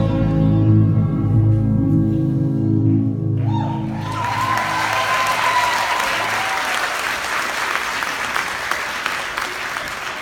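The dance music ends on a held chord that fades out, and about three and a half seconds in the audience breaks into applause with a long cheer, clapping on until the end.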